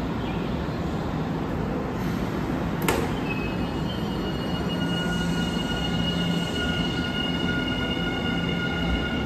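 Semboku Rapid Railway 12000 series electric train starting to pull out of the station. A sharp knock comes about three seconds in, and steady high-pitched whines then set in over the train's rumble as it moves off.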